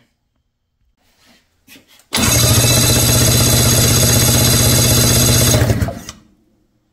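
Electric starter cranking a 1992 Ski-Doo Mach 1's two-stroke twin with both spark plugs out, so it spins fast and evenly for about four seconds, then stops. It is a spark test, cranking an engine with water in one cylinder.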